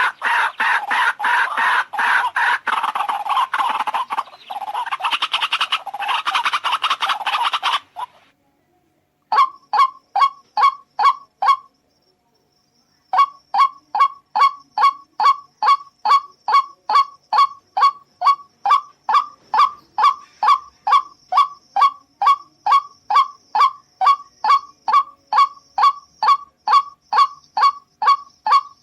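White-breasted waterhen calling: first a loud, harsh chorus of croaking calls for about eight seconds, then, after a short silence, long runs of short calls at one pitch repeated about twice a second.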